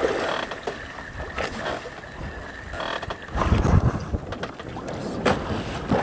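Sea water slapping and splashing against a small wooden outrigger boat and its bamboo outrigger float, with wind on the microphone. A few short sharp knocks, and a louder low rumble a little past halfway.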